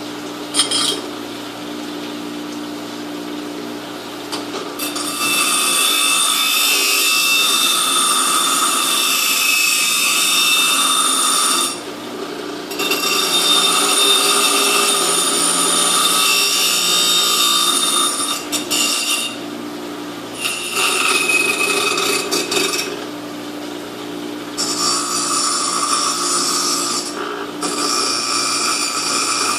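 A handheld power tool working metal in several long passes. Its steady high whine and hiss drop away each time it comes off the work for a moment, while the motor's low hum carries on underneath.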